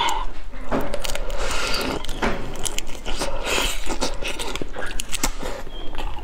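Close-miked eating of a raw tiger prawn: biting and chewing, with a steady run of wet clicks and crackles.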